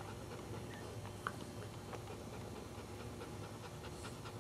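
Cairn Terrier mother dog panting quietly while in labor, over a steady low hum.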